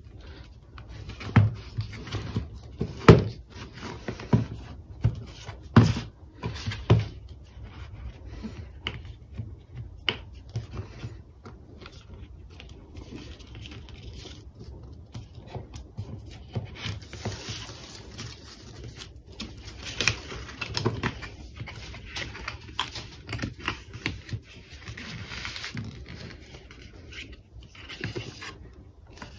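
Hands handling an Apple Watch box: sharp knocks and taps of fingers and cardboard on the table, mostly in the first seven seconds, then the scraping and rustling of the paper seal being peeled and the folded paper wrapper being opened.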